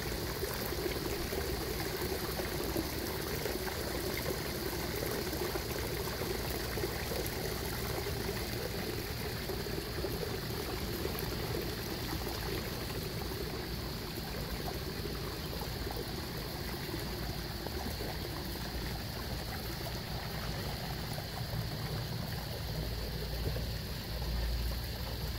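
Steady splashing and trickling of water running into a koi pond, with a low rumble on the microphone near the end.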